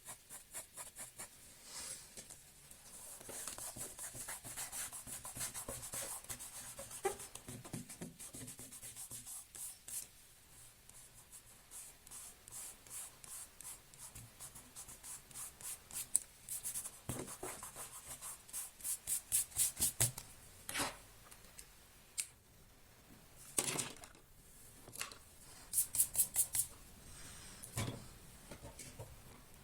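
Faint scratching of a drawing tool on paper: scattered strokes with short runs of quick back-and-forth strokes, as in shading.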